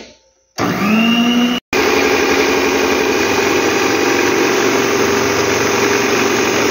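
Electric stand mixer switching on about half a second in, its motor whine rising as it comes up to speed, then running steadily as the beater whips eggs and warm water into a foam. The sound cuts out for an instant about a second after starting, then carries on.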